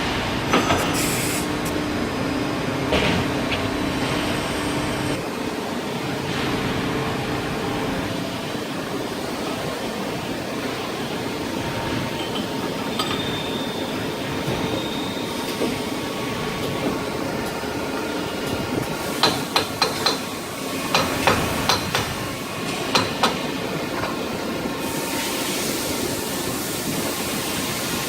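Steady machinery noise with a few held tones, broken about two-thirds of the way through by a quick run of sharp clinks and knocks.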